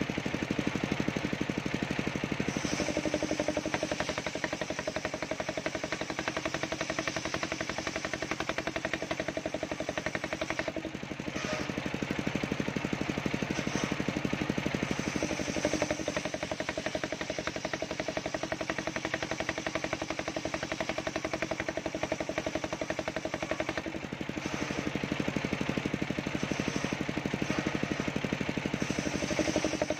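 Engine-driven table circular saw ripping waru (sea hibiscus) wood into battens: the engine's rapid, even pulsing under the steady hiss of the blade cutting through the timber. The cut eases briefly twice as the boards are repositioned, then carries on.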